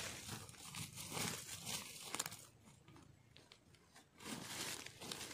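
Bare hand digging and scraping through dry, crumbly soil to free a sweet potato: faint crunching and rustling of earth in short bursts, with a quieter spell for about a second and a half in the middle.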